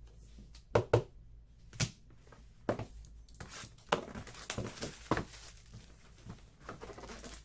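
Trading-card packaging handled on a table: several sharp knocks, then a couple of seconds of crinkling and tearing, with small clicks.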